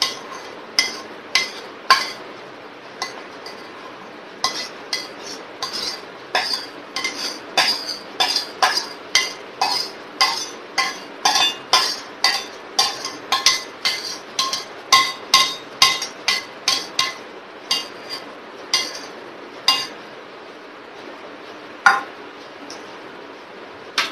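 Metal spoon scraping and knocking against a stainless-steel serving bowl as rice is scooped out of it: a long series of sharp, ringing clinks, about one or two a second, that stops about 20 seconds in, with one more a little later.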